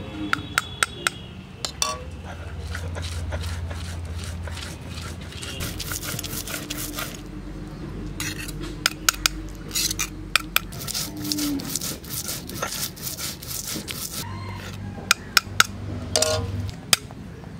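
Stone roller grinding wild arum leaves and shrimp into a paste on a flat stone slab (sil-pata), grinding and rubbing with sharp knocks and clicks of stone against stone coming in clusters near the start, around the middle and near the end.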